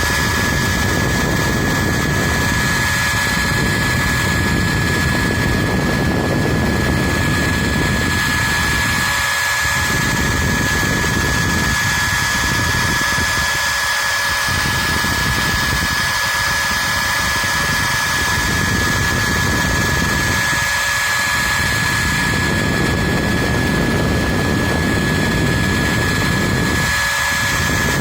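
CNC router spindle whining at one steady high pitch while the bit carves wood, with a rougher low cutting noise that drops away briefly every few seconds as the tool passes change.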